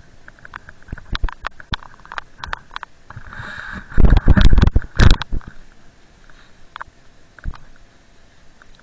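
A rider sliding down a snowy forest track, heard from a body-worn camera: scattered clicks and knocks, a brief hiss of snow a little after three seconds, then a loud rumbling scrape over the snow lasting about a second.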